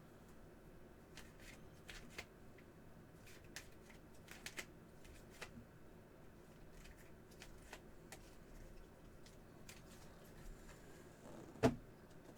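Faint clicks and rustles of trading cards and card holders being handled and sorted on a table, with one louder knock near the end.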